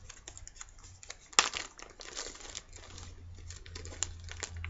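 Clear plastic bags crinkling and rustling as they are handled and searched through, a run of small crackles with one sharp, louder crackle about a second and a half in.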